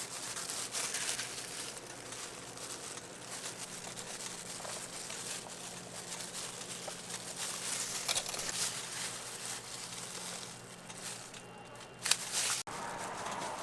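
Crinkly rustling and light scraping from crepe making at a street stall, with scattered small clicks. A short, louder burst comes near the end, then the sound cuts off abruptly.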